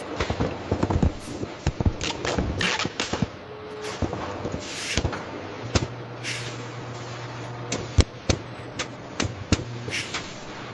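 Production-line machinery clattering: irregular sharp clicks and knocks over a low steady hum that comes and goes, with one louder knock about eight seconds in.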